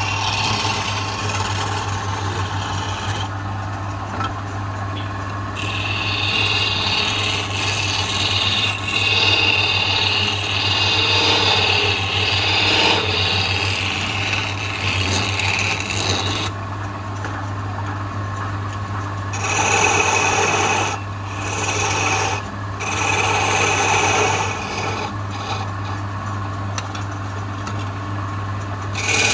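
A chisel cutting into a spinning wood spindle on a lathe: a hissing, scraping shave that runs in long passes, stopping and starting again twice, over a steady low hum.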